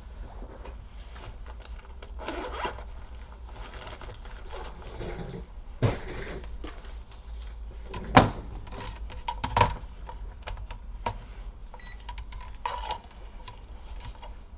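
Laptop plastic casing and small parts being handled and worked on: scraping and rubbing with a series of sharp plastic clicks, the loudest about eight seconds in.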